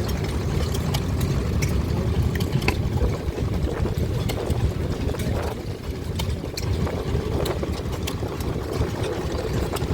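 Vintage stationary engines running steadily with a low rumble, and irregular sharp clicks over the top.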